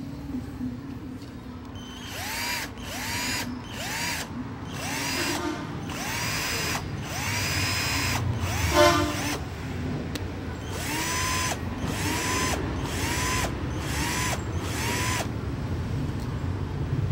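A 12 V cordless drill's motor is run in short trigger pulls, a bit over one a second, in two runs with a short pause between. Each pull is a whine that spins up quickly in pitch and then holds. A brief louder clatter comes a little before halfway.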